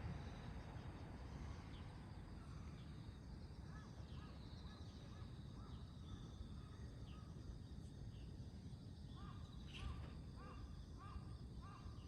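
A bird calling over and over in short arched notes, about two a second, getting louder near the end, over a steady low rumble.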